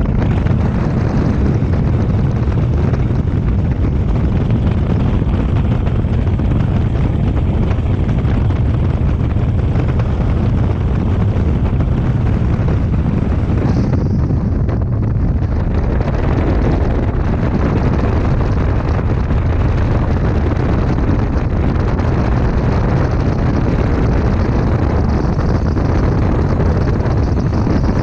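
A bass boat running at speed: heavy wind buffeting the microphone over the steady drone of the motor and the rush of water off the hull.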